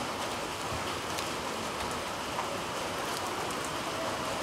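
Heavy rain falling steadily, with scattered sharp ticks of individual drops.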